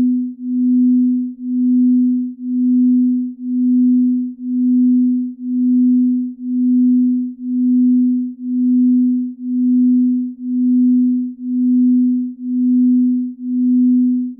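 Binaural beat: a single steady low pure tone that swells and fades about once a second, with no other sound.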